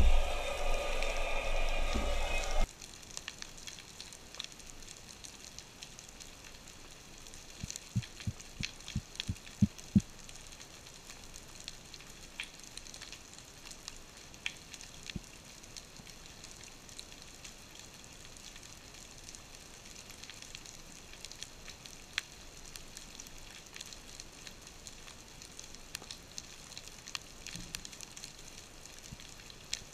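Underwater ambience heard through an action camera's housing: a steady fine crackling with scattered sharp clicks, and a few low knocks about eight to ten seconds in. It opens with a louder rush of water near the surface that cuts off abruptly about three seconds in.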